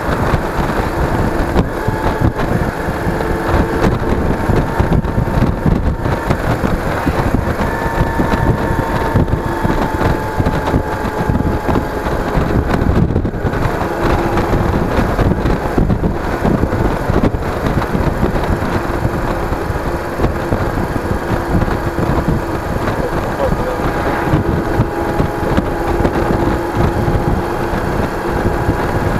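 Yamaha DragStar's V-twin engine running steadily at road speed, its note shifting slightly in pitch, under heavy wind buffeting on the microphone.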